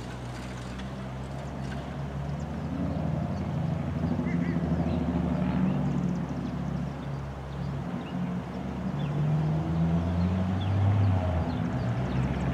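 Engine running off-screen, a low drone whose pitch shifts several times as it grows louder.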